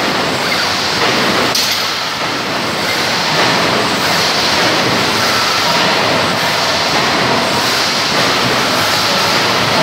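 Wire mesh welding machine line running: a steady, loud, even mechanical noise with no clear rhythm.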